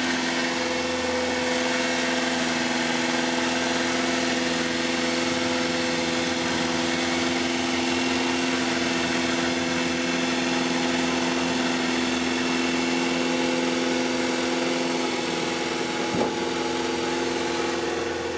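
Electric hydraulic pump unit of a Subaru Sambar kei dump truck running steadily with a humming whine while the dump bed is operated, winding down with a falling pitch at the very end.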